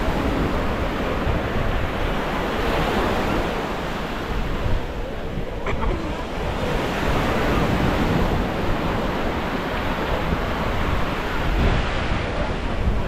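Small sea waves washing onto a sandy beach, the surf swelling and easing every few seconds, with wind rumbling on the microphone.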